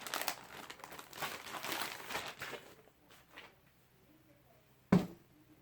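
Plastic packaging crinkling and rustling as it is handled, for about two and a half seconds, then dying away; a single sharp knock about five seconds in.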